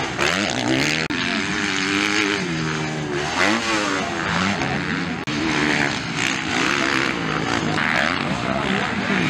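Motocross bike engines revving hard, their pitch rising and falling again and again as the throttle is opened and closed over the jumps.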